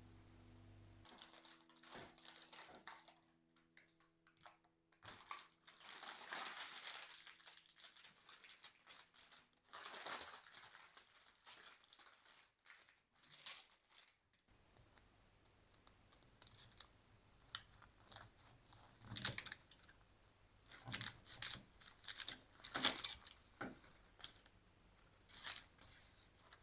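Irregular crinkling and tearing handling noises with scattered clicks, coming in short bursts and loudest in the second half, after background music fades out at the start.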